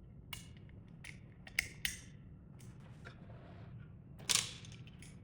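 Faint sharp clicks and small clatters of a mortise lock body being handled, its latch tongue pushed in and turned round to suit the door's opening direction. There are a few quick clicks in the first two seconds and a louder clack just after four seconds in.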